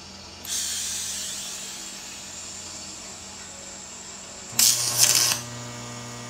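TIG welding arc: a loud crackling arc start about four and a half seconds in, then a steady buzzing hum as the arc burns. A hiss comes in about half a second in and fades away over the next second.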